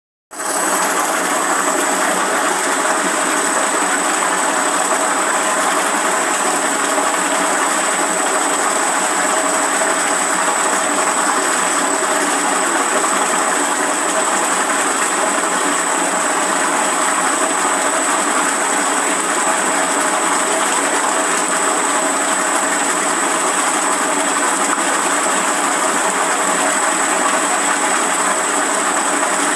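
Agitator of a liquid detergent mixing tank running steadily: a constant machine drone with a thin, steady high whine above it.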